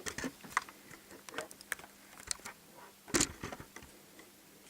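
Scattered small clicks and light knocks of a plastic case fan and its wire being handled against a computer case, with one louder knock about three seconds in.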